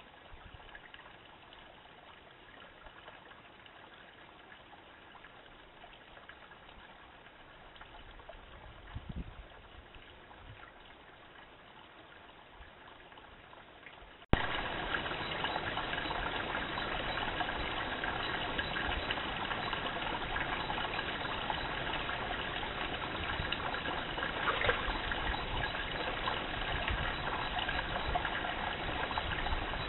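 Steady hiss of water trickling through a shallow rocky stream. It is faint at first, then much louder after a sudden cut about halfway through.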